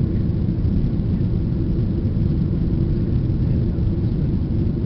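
Steady jet engine and airflow noise heard inside an airliner's cabin during the climb after takeoff: an even low rumble with a faint steady drone.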